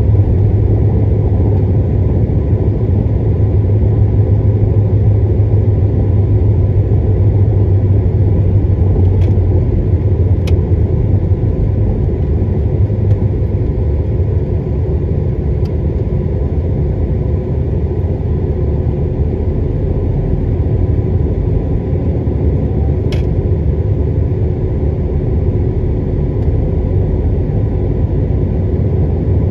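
Steady low rumble of a car's engine and tyres on the road, heard from inside the cabin while driving at an even speed, with a few faint ticks.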